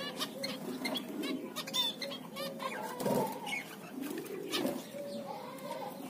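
Zebra finches and white finches calling, a busy, continuous mix of short chirps and calls, with a few lower, longer calls about three seconds and four and a half seconds in.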